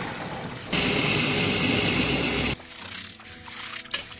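Red beans being rubbed and swished by hand in a basin of water as they are washed, with a loud steady rush of running water that starts and stops abruptly, lasting about two seconds in the middle.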